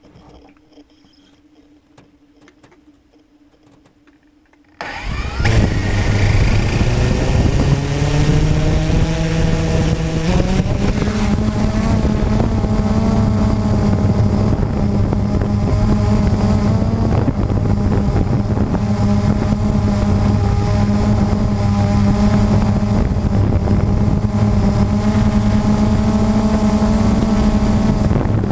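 Blade 350 QX3 quadcopter's electric motors and propellers starting up about five seconds in, heard up close from the camera mounted on the drone. The whine rises in pitch as the rotors spin up for takeoff, then settles into a loud, steady buzz in flight.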